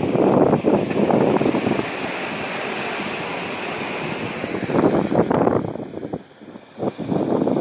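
Wind buffeting the microphone in uneven gusts, with a steadier rushing hiss for a couple of seconds in the middle and a brief lull about six seconds in.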